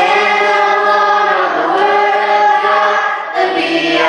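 A group of children and adults singing together in unison, holding long notes.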